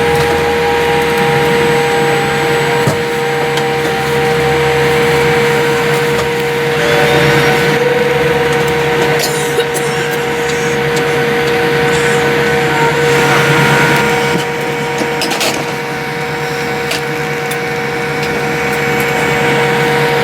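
Steady cabin noise inside a Boeing 787-8 after landing: a continuous rush of air with a constant whine, and a few short clicks around the middle.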